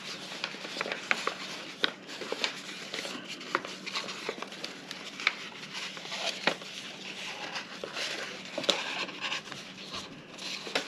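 Paper being folded and creased by hand into mountain and valley folds: irregular soft crinkles, rubs and small clicks.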